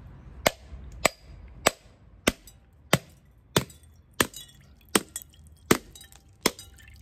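A coconut shell being struck again and again with a hard tool to crack it open: about ten sharp knocks, a little more than one a second, each with a brief ring.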